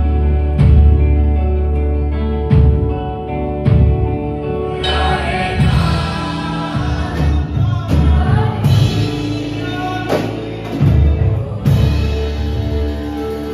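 A choir singing with instrumental accompaniment and a strong bass line, loud and continuous.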